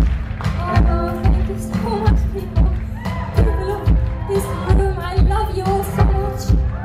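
Live pop concert music: a heavy kick-drum beat falling about every 0.6 seconds, with a woman singing over it from about a second in. The recording has poor sound quality.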